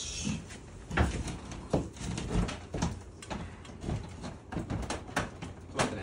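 Plastic casing of a wall-mounted air conditioner indoor unit knocking and clunking irregularly as it is pushed and worked onto its wall mounting plate, with a sharper knock about a second in and another near the end.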